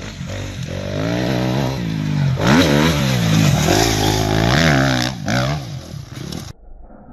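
Dirt bike engine revving hard under throttle, its pitch repeatedly climbing and dropping as the rider accelerates and shifts. Near the end it drops to a quieter, duller engine sound.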